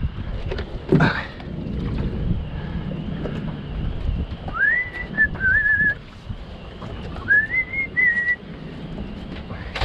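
Two short whistles, each rising in pitch and then held briefly, a couple of seconds apart, over a steady low rumble. A single thump about a second in.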